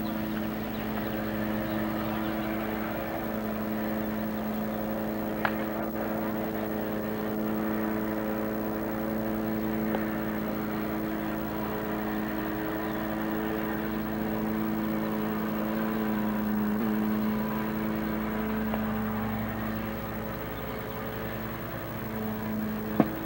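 A steady mechanical hum made of several held tones, like a motor running without change. A sharp crack sounds about five and a half seconds in and a louder one near the end.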